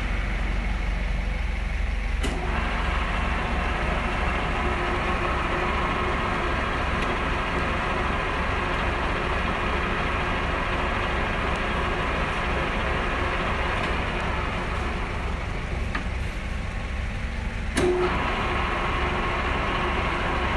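Cincinnati Bickford Super Service 24-inch drill press running, its 5 hp three-phase motor and gearbox giving a steady hum. There is a click about two seconds in and another near the end, and each time the pitch of the hum changes.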